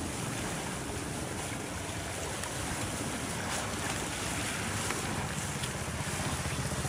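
Steady rush of fast-flowing, turbulent floodwater, with wind buffeting the microphone, a little stronger near the end.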